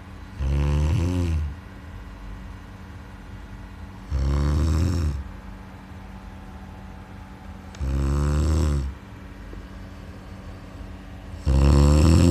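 A sleeping person snoring: four rattling snores about a second long, evenly spaced roughly every three and a half to four seconds, the last one the loudest.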